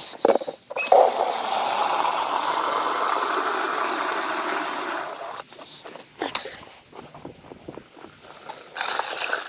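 Water running in a steady stream for about four and a half seconds, then a short splash of water near the end, with scattered clicks and knocks of handling in between.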